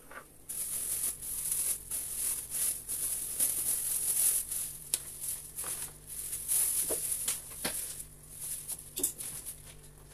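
Plastic cling film crinkling and rustling as it is pulled off a block of dough, a dense run of crackles that starts abruptly and dies away near the end.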